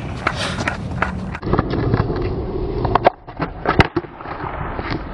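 Skateboard wheels rolling on pavement, then two sharp knocks of the board about three seconds and nearly four seconds in before the rolling resumes.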